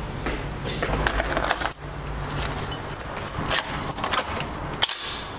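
Keys jangling, with sharp metallic clicks of a door's lock and knob being turned near the end.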